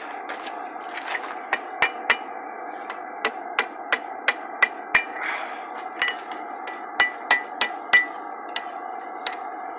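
Hammer blows on hot iron against a steel anvil, each strike ringing briefly: some twenty irregular blows at about two or three a second, with a short pause midway, over a steady background noise. The iron is being bent into a hook over the anvil horn.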